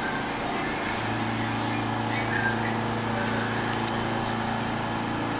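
A standing R46 subway train humming steadily, with a low, even hum from its onboard equipment that sets in about a second in and holds.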